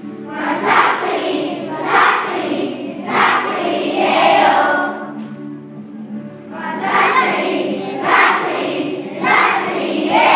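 A group of schoolchildren singing together in Irish, phrase after phrase, with a short lull about halfway through.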